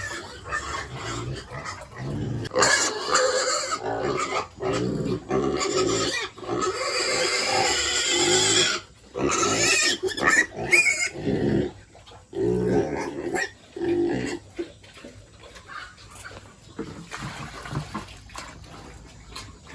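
Pigs squealing: loud, repeated calls for about the first eleven seconds, then quieter, scattered calls.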